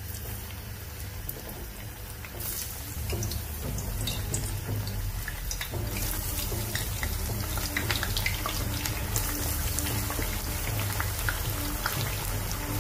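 Eggplant slices frying in hot oil in a frying pan: a steady sizzle full of small crackles. It gets louder about two and a half seconds in and again at about six seconds as more slices go into the oil.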